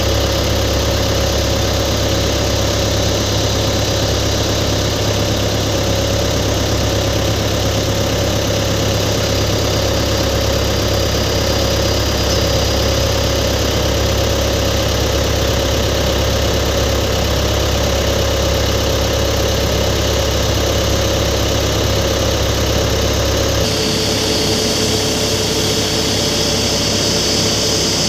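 Steady engine drone with a deep hum and a thin high whine over it, without a break. Near the end the tone changes abruptly, the hum thinning and the whine shifting.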